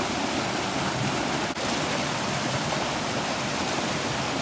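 Rushing water of a forest stream, a steady loud hiss, with a brief click about a second and a half in.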